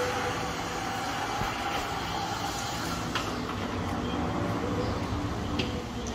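Handheld electric heat gun running with a steady fan whir and hiss, with a couple of light clicks about three and five and a half seconds in.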